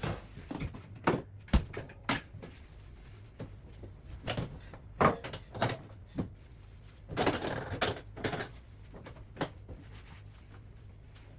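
Irregular knocks and clatter of hard items being handled and set down during hand dishwashing, with a longer scraping, rustling stretch about seven seconds in.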